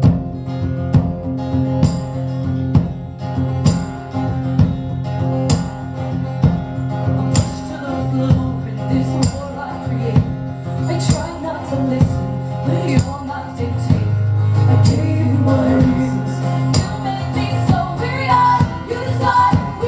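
Live band music: an instrumental passage with guitar, sustained low notes and a steady beat of sharp percussive hits, with some singing.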